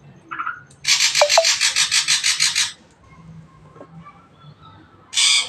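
Ashy drongo calling: a short pulsed note, then a harsh, rapid chattering trill of about eight pulses a second lasting nearly two seconds, and another harsh burst near the end.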